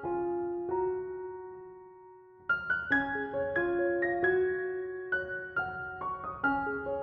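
Background piano music: a few notes that ring and fade over the first two seconds, then a new run of notes played about two and a half seconds in.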